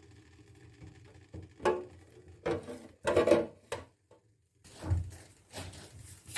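Kitchen containers and fridge parts being handled: a run of short clatters and knocks, some with a brief ring, spread over a few seconds with pauses between them.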